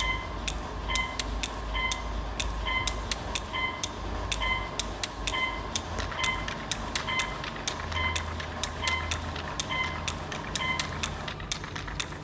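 Passenger lift car travelling down with a low steady hum, while a short beep repeats about twice a second, accompanied by sharp ticks.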